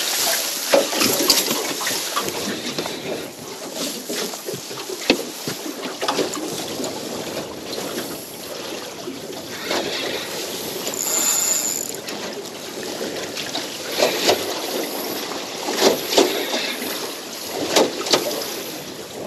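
Water slapping and sloshing against the hull of a small drifting boat, with wind on the microphone and scattered sharp knocks and splashes.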